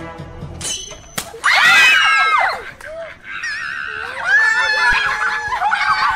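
A water balloon bursts with a sharp pop about a second in, followed at once by loud screaming. After a brief warbling sound effect, a group of children squeal and laugh.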